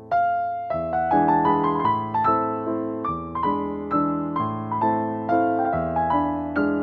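Background piano music: a gentle melody of single notes struck about two a second, each fading before the next.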